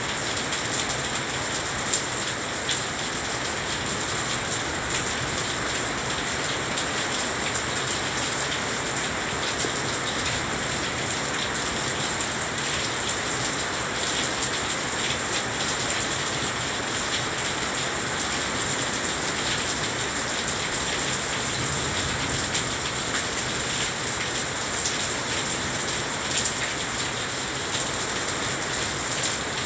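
Heavy rain falling steadily on a glass balcony railing: a dense, even hiss full of small drop impacts.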